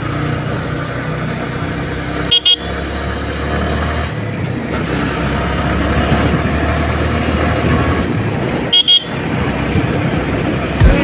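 Motor vehicle engine running with a steady low drone, with two short double beeps of a vehicle horn about six seconds apart.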